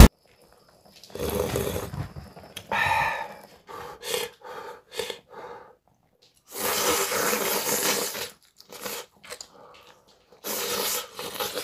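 Pot of galbitang (beef short-rib soup) boiling on a portable gas burner. It bubbles in several stretches with short pauses between them, and a few short knocks come near the middle.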